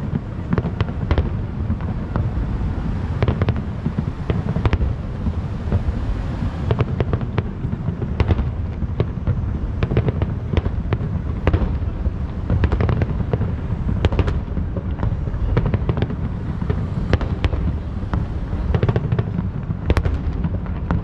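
Distant aerial firework shells bursting one after another, sharp bangs at an irregular pace of one or two a second over a steady low rumble.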